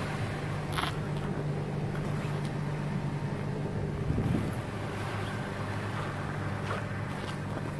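A vehicle engine idling: a steady low hum, with a few faint clicks and a brief louder rustle about halfway through.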